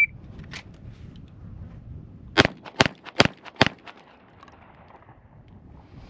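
Springfield Armory Prodigy pistol fired four times in quick succession, about 0.4 s apart, in a timed shooting drill, starting about two and a half seconds in.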